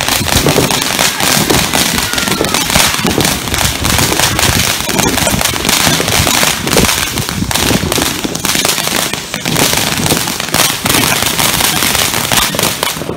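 Ground-launched firework going off continuously, with dense, rapid crackling and popping as it throws up sparks and small star bursts.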